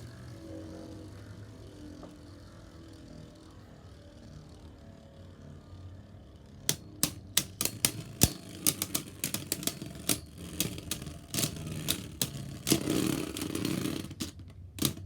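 Beyblade Burst spinning tops, Roar Balkesh and Harmony Pegasus, whirring in a plastic stadium. About seven seconds in, sharp plastic clacks start and come thick and fast as the tops collide again and again.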